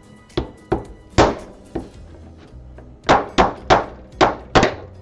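A hammer striking a chisel into a small wooden barrel to pop it apart. There are three spaced blows, then a quick run of six about three seconds in.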